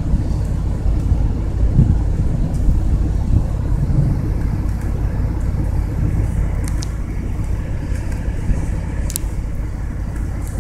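Low, continuous rumble of a night thunderstorm at an even level, with two faint clicks in the second half.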